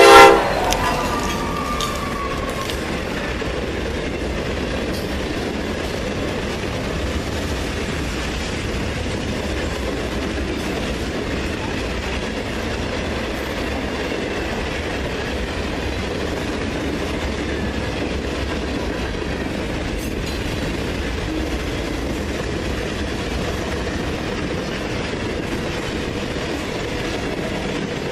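Freight train rolling past, its cars making a steady rumble with wheel and rail clatter. The horn cuts off right at the start.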